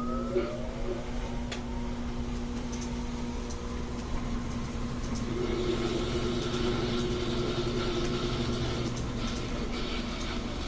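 GE top-load washer running its spin cycle: the motor and drum run with a steady hum and rumble, and a whine rises in pitch at the very start. It is spinning again because the cleared pressure-switch tube now lets the pressure switch sense an empty tub.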